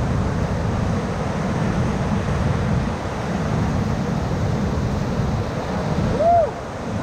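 River whitewater rushing steadily around a paddle raft, with wind on the microphone. Near the end a short tone rises and falls, the loudest moment.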